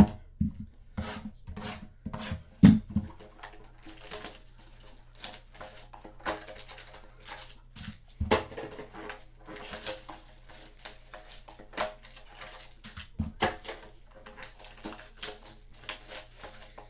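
Trading cards and their packs being handled and opened: an irregular string of clicks, taps and rustles of card stock and wrappers, with a few dull knocks in the first few seconds.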